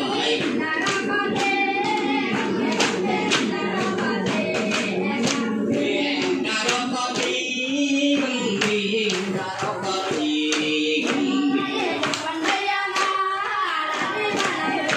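Group singing in a berunsai sung dance, several voices chanting verses together. Sharp percussive hits, like hand claps or stamping, keep a rough beat throughout.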